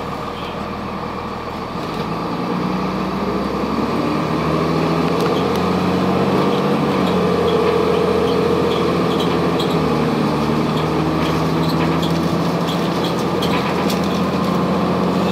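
Cummins ISC diesel engine of a 2002 Blue Bird CS transit bus, heard inside the bus, running under its Allison automatic transmission; the engine note rises and grows louder about two seconds in, then holds steady, with light rattles over it.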